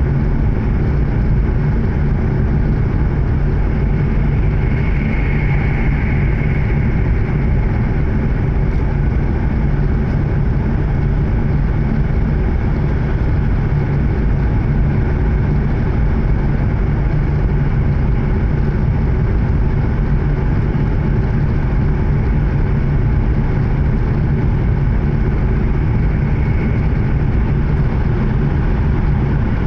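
Running noise inside an E7 series Shinkansen passenger car travelling at speed: a steady low rumble from the wheels and track. A faint high tone rises and fades about five seconds in.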